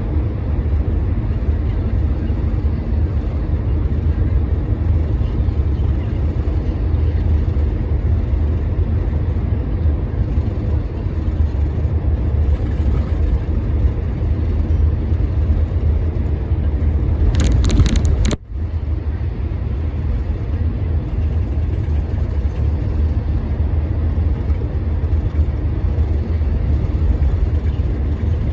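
Steady low rumble of engine and road noise heard from inside a bus driving through a road tunnel. About two-thirds of the way through there is a brief louder rushing noise, which cuts off sharply for a moment before the rumble resumes.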